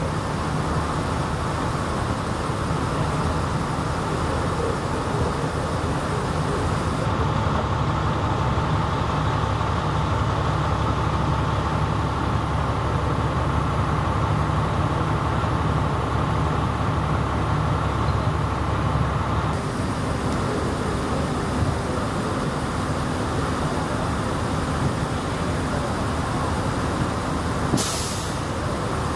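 Heavy vehicle engine idling, a steady low rumble that grows louder for about twelve seconds in the middle, with a short hiss about a second before the end.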